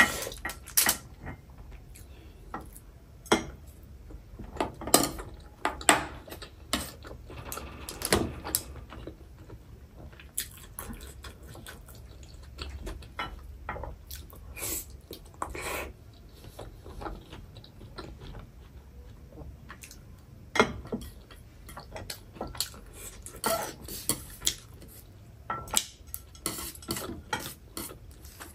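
Metal chopsticks clicking and tapping against a foil-lined tray and dishes while picking up momos, irregular sharp clicks a few seconds apart, with soft chewing sounds in between.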